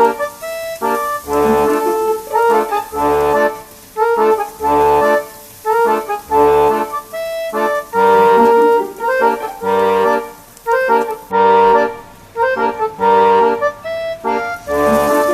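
Background music: a sustained reedy melody, accordion-like, over a bass note that returns about every second and a half to two seconds.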